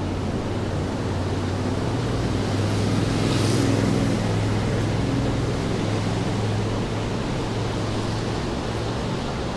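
Rain and wet-street noise with a vehicle passing. Its low engine hum and the hiss of tyres on wet pavement swell to a peak about three and a half seconds in, then fade back.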